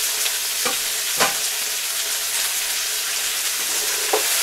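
Chopped onion, capsicum and tomato sizzling in hot oil in a frying pan, with a wooden spatula knocking and scraping against the pan a few times as they are stirred.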